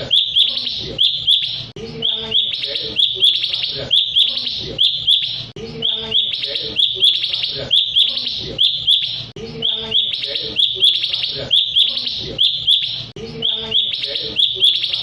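Recorded call of a cucak cungkok songbird: rapid chirping phrases, repeated over and over in the same pattern, with a short break about every four seconds.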